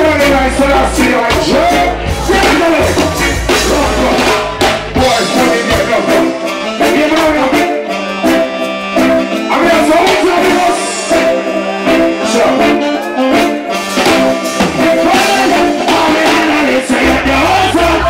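Live reggae band (drum kit, keyboards, bass) playing with a male singer vocalising into a microphone. The bass drops away for a long stretch in the middle, then comes back near the end.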